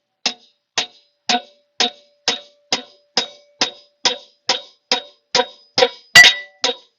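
Evenly spaced metallic taps, about two a second, each ringing briefly, with one harder strike about six seconds in: a hammer tapping on a small-block Chevy 350's intake manifold to break it loose from the heads.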